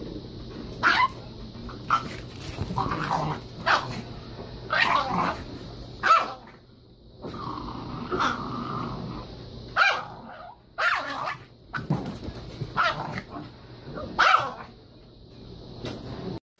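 A dog barking in short, sharp, repeated barks at an uneven pace, about one a second, with growling between them.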